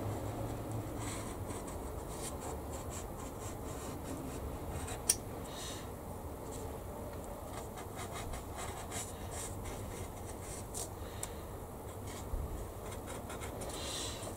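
A decal being cut out of its paper backing sheet: a run of small, faint scratching and snipping ticks, with one sharp click about five seconds in.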